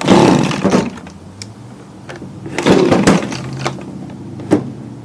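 Recoil starter cord of an Echo ES250 blower's two-stroke engine pulled twice, each pull a rough burst under a second long that winds down in pitch without the engine catching, followed by a couple of sharp clicks.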